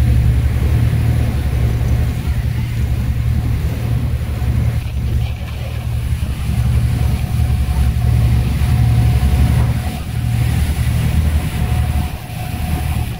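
Motor yacht running at speed: a deep, uneven rumble of its engines and wind buffeting the microphone, with water rushing past the hull.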